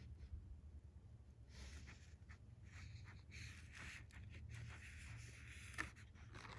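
Faint handling noise: fingers, a steel fishing hook and monofilament line rubbing and scraping on the work surface, with one sharp click near the end. A low steady hum sits underneath.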